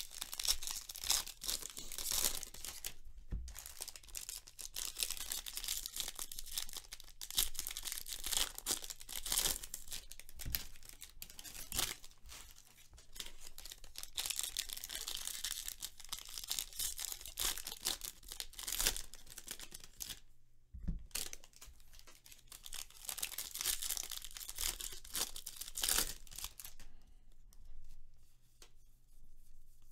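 Foil wrappers of Bowman Draft baseball card packs being torn open and crinkled, with the cards handled between them. The rustling comes in spells, with short breaks about three seconds in and about twenty seconds in, and dies down near the end.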